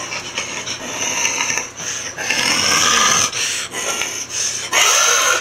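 A man's voice making rough, growling animal noises for an alligator hand puppet, loudest in two stretches: one about two seconds in lasting about a second, and a shorter one near the end.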